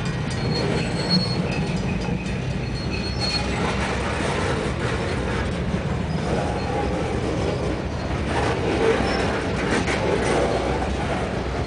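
BNSF freight cars rolling past at close range, steel wheels running over the rail joints with a steady rumble and clatter. A high wheel squeal rises over it from about one to three seconds in.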